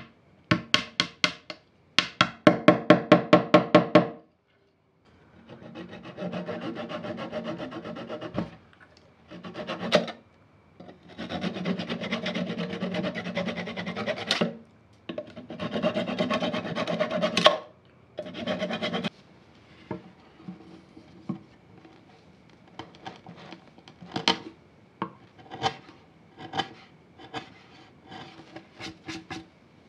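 A thin flush-cut hand saw held flat on beech wood cuts off protruding glued wooden dowels, in several bursts of rapid back-and-forth strokes. From about 20 seconds in, a chisel pares the dowel stubs flush with short, quieter scrapes and clicks.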